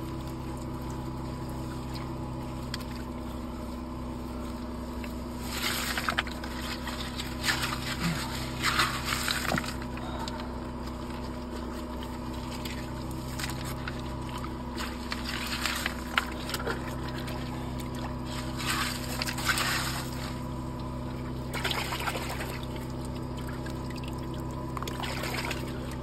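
Gloved hands sloshing and scraping through muddy water and loose rock in a flooded crystal pocket, in irregular splashy swishes every few seconds, over a steady low hum.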